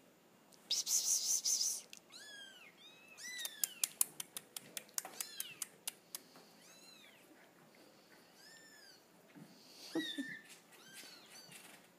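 Baby kittens mewing repeatedly in short, thin, high-pitched cries. A loud burst of noise comes about a second in, and a quick run of clicks falls around the middle.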